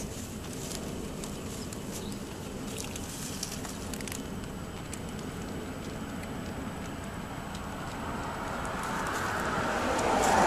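Cats eating dry kibble and pâté from plates, with a steady crackle of small sharp clicks of crunching and licking. Over the last two seconds a passing car's road noise swells and becomes the loudest sound.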